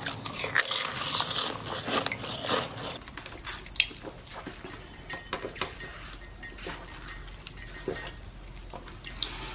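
Close-miked ice ASMR: scattered small clicks and taps of ice with faint liquid sounds, busier in the first few seconds. The liquid sounds come from water poured over ice domes in a mould and from sipping through a straw out of a liquid-filled ice ball.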